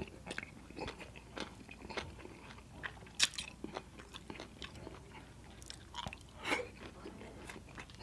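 Close-up chewing and biting of papaya salad: scattered wet clicks and crunches, with two louder crunches about three seconds and six and a half seconds in.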